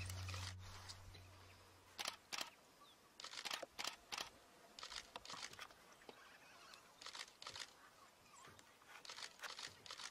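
Background music fades out in the first second, then many short, faint, irregular sounds come in loose clusters from a litter of African wild dog pups suckling under an adult.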